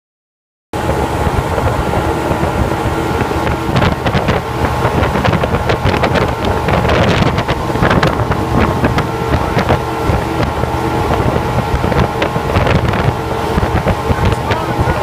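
Motorboat engine running steadily, with wind buffeting the microphone; it starts abruptly under a second in.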